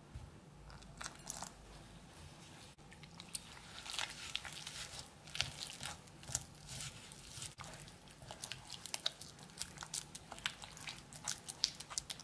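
Wooden spoon stirring flour and warm water into a wet, sticky dough in a ceramic bowl: squelching mixing with many quick scrapes and taps of the spoon against the bowl, busier from about four seconds in.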